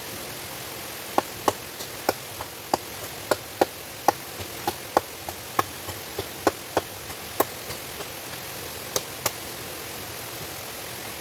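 Steady rushing of a waterfall, with a run of sharp, irregular knocks or taps, about three a second, starting about a second in and stopping after about nine seconds.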